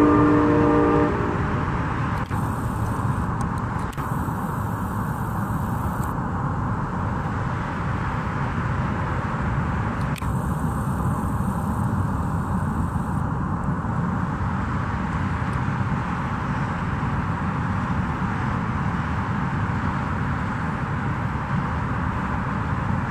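A train horn sounding a chord of several notes that cuts off about a second in, followed by the steady noise of a train running by.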